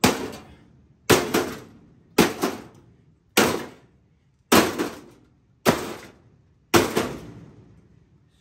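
Microwave parts being smashed with heavy blows: seven strikes about a second apart, some landing as a quick double hit, each with a short ring after it.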